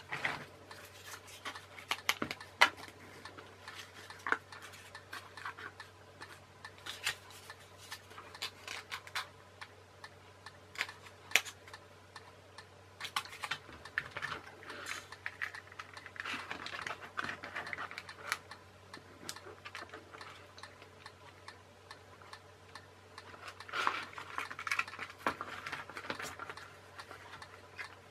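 Hands working on a plastic toy truck chassis and small tools at a workbench: irregular clicks, taps and knocks of hard plastic parts, with short bursts of rustling handling about sixteen and twenty-four seconds in.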